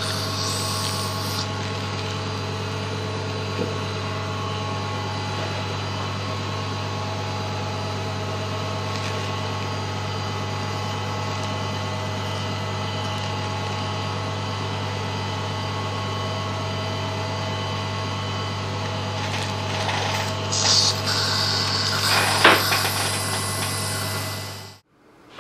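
Steady, unchanging machine hum from dental surgery equipment, with a few short instrument clicks and scrapes near the end.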